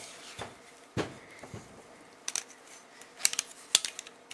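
Handling noise: scattered light clicks and knocks as a bust is held up close and a pair of eyeglasses is set on it, the sharpest a little after three seconds in.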